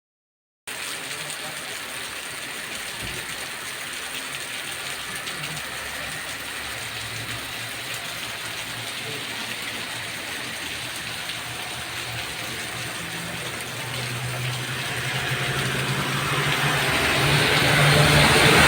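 Heavy rain falling as a steady hiss. Over the last few seconds a vehicle engine hum grows louder as it draws near.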